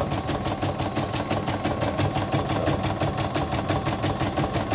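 CNY E960 portable computerized embroidery machine stitching a design, a steady rapid clatter of about nine needle strokes a second. It is running normally, with no fault, after its dirty mode sensor was replaced.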